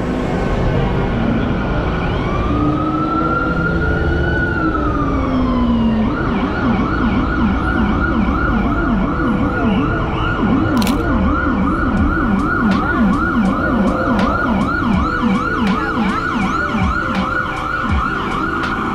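Emergency vehicle siren: one slow rising and falling wail, then from about six seconds in a fast yelp of about three sweeps a second, over steady city traffic noise.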